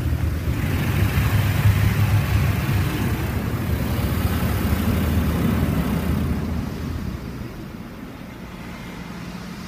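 High-pressure water spray from a Mark VII ChoiceWash XT rollover car wash hitting the car, heard from inside the cabin as a loud hiss over a deep rumble. It fades about seven seconds in as the spray pass moves off.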